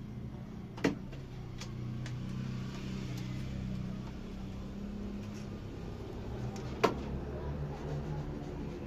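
Hand tools knocking and clicking against a melamine cabinet while edge banding is applied: two sharp knocks about six seconds apart and a few lighter clicks, over a steady low hum.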